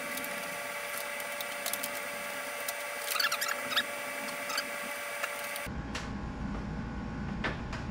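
Light clicks and small squeaks of plastic motorcycle trim pieces being handled and pressed into place, bunched about three to four seconds in, over a steady hum that cuts off near the end.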